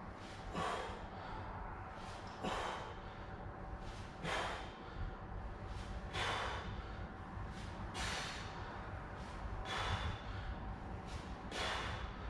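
A man's sharp, forceful exhalations, one with each rep of a dumbbell push press, coming evenly about every two seconds, seven in all.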